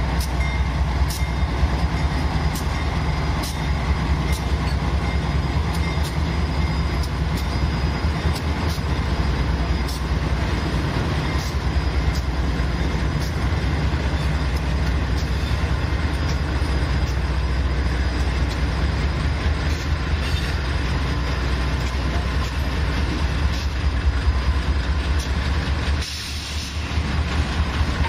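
Railroad cars rolling past: a steady heavy rumble with the irregular clicks of wheels over the rail joints. It drops briefly about two seconds before the end.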